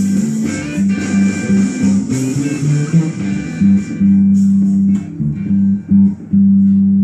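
Electric bass guitar playing a bass line over a band recording with drums. The band track drops away about four seconds in, leaving the bass playing longer held notes alone.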